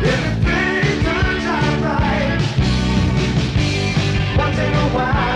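Rock song with singing over a full band.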